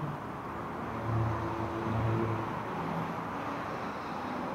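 Road traffic on a multi-lane road, cars passing, with an engine hum that swells about a second in and again around two seconds.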